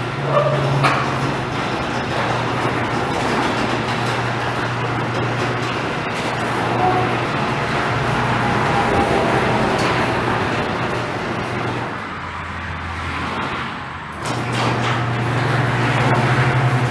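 Garage door opener motor running with the door rumbling along its tracks. It hums steadily, drops to a lower note about twelve seconds in, then picks up again about two seconds later, as in the door going up and coming back down after the springs have been re-tensioned.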